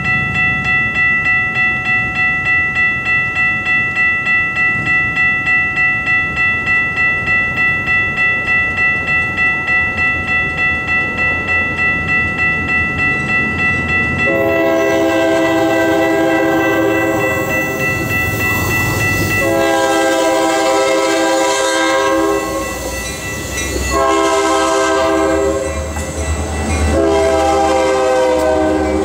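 Grade-crossing bell ringing at about two strokes a second. Then the lead diesel locomotive's air horn sounds the crossing signal, two long blasts, a short one and a long one, as a pair of EMD SD40-series locomotives approach and pass with a rising engine rumble.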